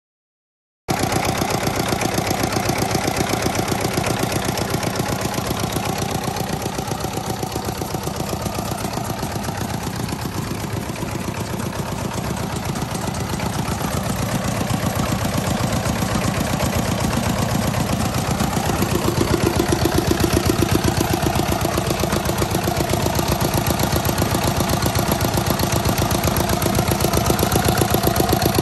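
Yanmar F8 single-cylinder diesel engine running steadily with an even beat of exhaust pulses. The sound cuts in suddenly about a second in, and it gets a little louder past the middle.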